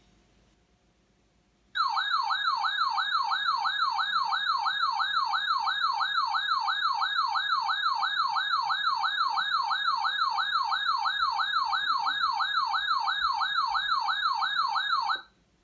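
Electronic siren tone, a rapid yelp that sweeps up and down several times a second without a break for about thirteen seconds. It starts suddenly a couple of seconds in and cuts off sharply near the end.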